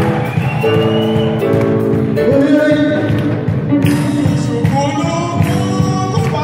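Live gospel praise music: a lead singer and backing singers on microphones, amplified through the hall's loudspeakers, with sharp percussion strikes coming in strongly about four seconds in.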